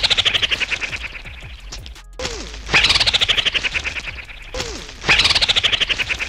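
An added sound effect played three times, about two and a half seconds apart. Each time it is a fast rattle that slows and fades over about two seconds, opening with a short falling tone.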